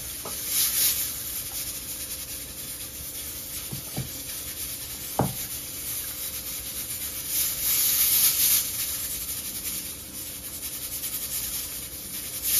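A long spoon stirring rice and coconut milk in a large aluminium pot, scraping against the pot in bursts, with two light knocks of the spoon on the pot about four and five seconds in.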